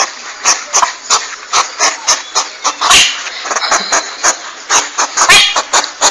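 Hedgehog snuffling and huffing: a fast, irregular series of short sharp puffs and clicks over hissy breath, about three or four a second.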